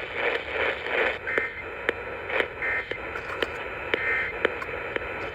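AM radio broadcast heard through heavy static hiss and sharp crackling clicks, with three short, clipped bursts of Emergency Alert System data tones about a second and a half apart. The start of the alert is botched, which the listeners call a messed-up pre-roll.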